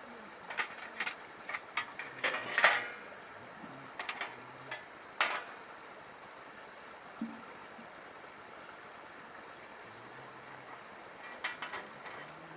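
Metal pieces clinking and clattering as they are handled: a quick run of sharp clinks in the first five seconds, the loudest about two and a half seconds in, then a few lighter clinks near the end.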